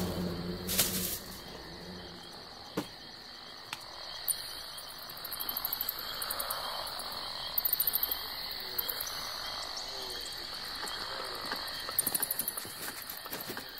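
Frog-like croaking, with short rapid rattling croaks about five, eight and twelve seconds in, over a steady high-pitched, insect-like trill. A single sharp click comes near three seconds in.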